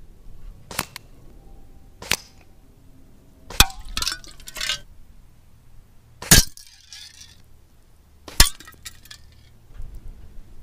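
Shots from a Hatsan Striker .25 air rifle and its pellets striking a metal drinking bottle: about six sharp cracks over ten seconds, some followed by a short metallic clatter as the bottle is knocked over and tumbles.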